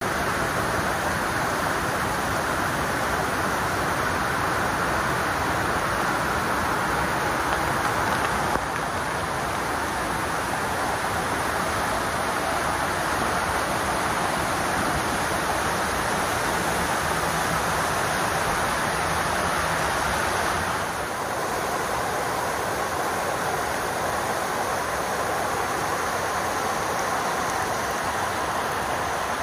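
Fast, churning floodwater rushing in whitewater rapids, with heavy rain falling: a loud, steady rushing that steps down slightly in level twice.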